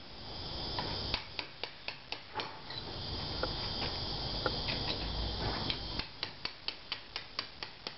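Small steel plugging chisel scraping and picking at old mortar in a brick joint, a run of sharp clicks and scrapes as the mortar is raked out around a loose brick. The clicks come quickest near the end, at about three or four a second.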